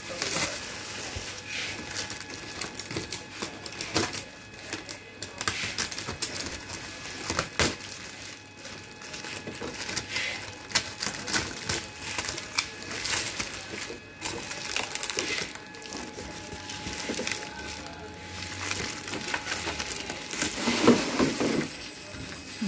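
Black plastic wrapping and torn corrugated cardboard crinkling and ripping by hand in irregular rustles and tears. Near the end there is a louder bump as the teal hard-plastic piece is pulled out of the box.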